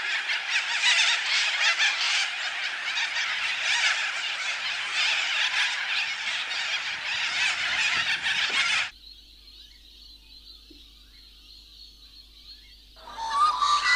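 A dense, chattering chorus of animal calls that cuts off abruptly about nine seconds in. Low hiss with a faint high tone follows, and a louder sound with several steady pitches starts near the end.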